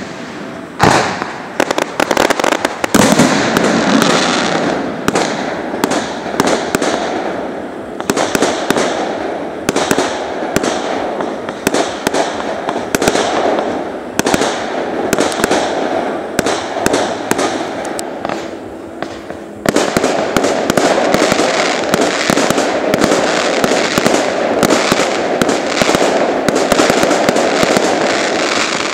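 Fireworks display: aerial shells bursting in a rapid barrage, many bangs in quick succession, growing denser and louder about two-thirds of the way through.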